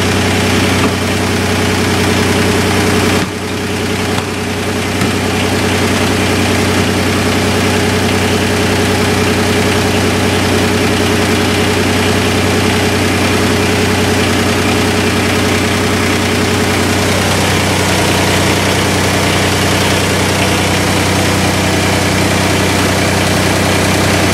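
A motor or engine running steadily with a continuous low hum, dipping briefly about three seconds in and then carrying on.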